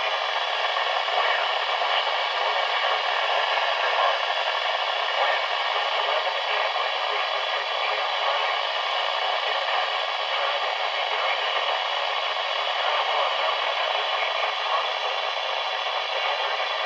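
Steady static hiss from a NOAA weather radio receiver on a channel with no broadcast audio coming through, with faint steady whining tones running through the hiss.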